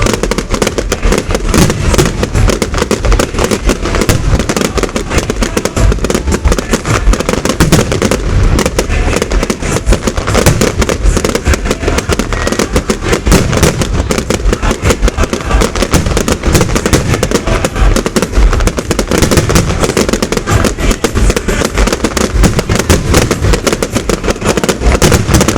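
Fireworks display: a dense, unbroken barrage of loud bangs and crackles, the shots following one another too fast to count.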